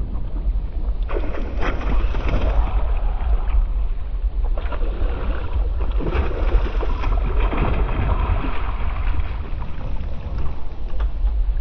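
Wind buffeting the microphone with a heavy low rumble while out on a boat, with irregular splashing of water against the hull.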